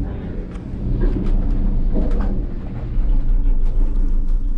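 Gondola lift cabin leaving the valley station: a low, steady rumble with a few clunks and rattles as it rolls through the station and out onto the cable, growing louder about three seconds in.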